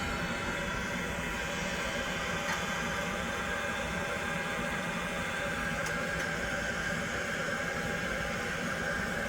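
Steady rush of hot air from a waste-oil furnace's heat exchanger, driven by a boat bilge blower, with the blower motor's steady whine underneath.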